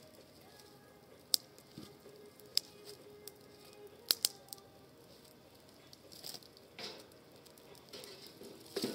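Wood campfire crackling, with a few sharp pops, two close together about four seconds in.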